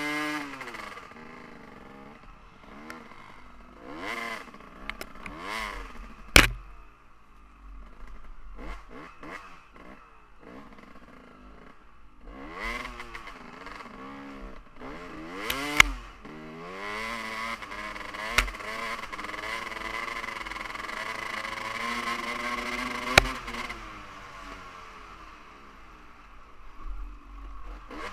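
Dirt bike engine revving up and down as the rider works the throttle and gears on a trail, with a longer stretch held at high revs past the middle. Four sharp knocks stand out as the loudest sounds.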